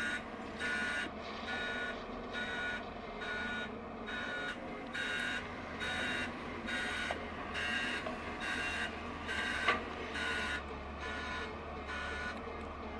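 Backup alarm of a JCB machine beeping about three times every two seconds while it reverses, over the steady hum of its engine running. A sharp click comes about ten seconds in, and the beeps grow fainter near the end.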